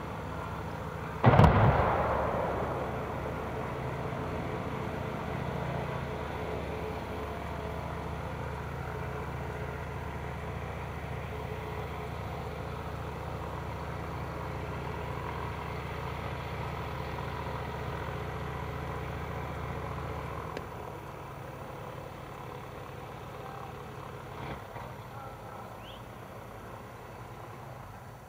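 A single large explosion about a second in: a sudden blast that dies away over a couple of seconds, from the pyrotechnic destruction of a film-set house. A steady low hum carries on after it and drops away about two-thirds of the way through.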